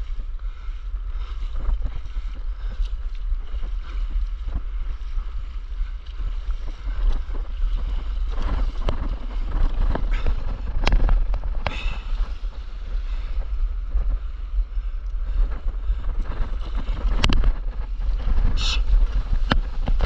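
Wind buffeting the microphone as a low, steady rumble, with water splashing and slapping around a stand-up paddleboard and its paddle. Sharper, louder splashes come in the second half as the board pushes through white water.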